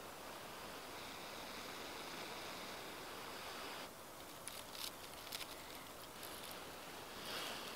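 Breath blown steadily into a bundle of dry wood shavings holding a smouldering amadou ember, to coax it into flame; the long blow stops about four seconds in, a few light crackles follow, and a second, shorter blow comes near the end.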